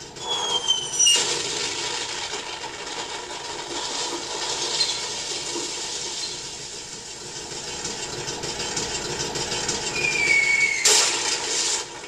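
Recorded 'incoming' battle sound effect played by an RC airsoft tank's sound unit through its small speaker. A falling whistle is followed by a long stretch of noisy rumbling clatter. A second falling whistle comes about ten seconds in, then a loud burst, and the sound cuts off abruptly.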